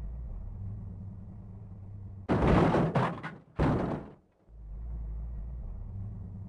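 Steady low rumble inside a car, with a loud noisy clatter in three or four quick pieces about two seconds in, lasting under two seconds.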